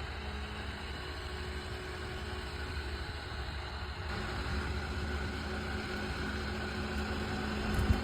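Small 12 V CPU cooling fan running steadily: a low hum with an airy hiss, a little stronger about halfway through.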